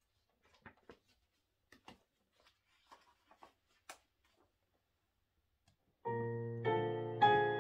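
Faint rustles and small knocks of sheet-music pages being turned and a book set on the stand, then, about six seconds in, a digital piano starts playing sustained chords, a new chord every half second or so.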